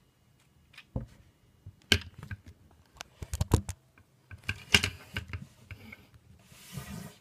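Hard plastic Lego Technic pieces clicking and clacking against each other and a tabletop as a Lego handgun is handled: a scattered series of sharp clicks, bunched around two, three and a half and five seconds in, then a short rush of hiss-like noise near the end.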